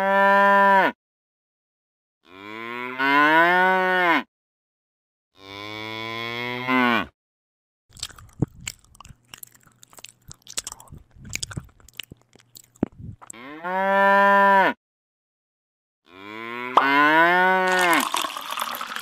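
Cow moo sound effects: five long moos, each rising then falling in pitch, three in the first seven seconds and two more later. Between them come several seconds of crunchy chewing as the cow grazes, and near the end a pouring sound as milk streams into a bucket.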